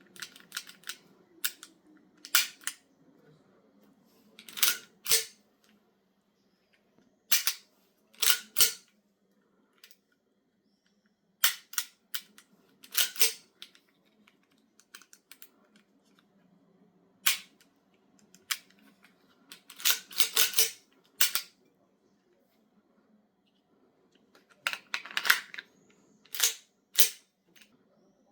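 Raven R9-4 airsoft gas blowback pistol, an M9A4 replica, being fired and handled. Sharp snaps and clicks come singly and in quick pairs or clusters, with pauses of a few seconds between them.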